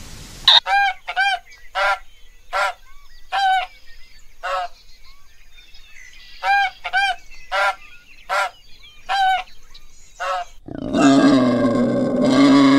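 A large bird giving about a dozen short honking calls at irregular intervals. About eleven seconds in, a different animal cuts in with a loud, rough, drawn-out low call that keeps going.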